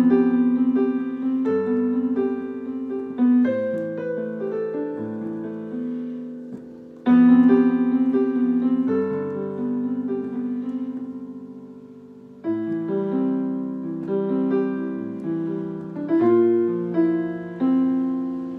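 Solo piano playing a slow ballad introduction: held chords and broken chords under a simple melody. Each phrase opens with a firmly struck chord that then fades, with new phrases starting about seven and twelve seconds in.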